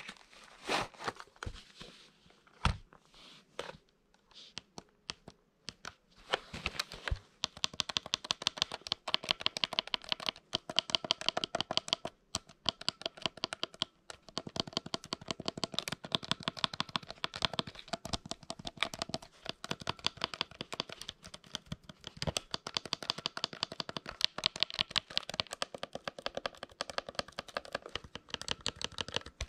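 Prinzatronic calculator keys being pressed, each press a sharp click. A few scattered clicks at first, then from about seven seconds in a fast run of key presses, several a second, that keeps on to the end.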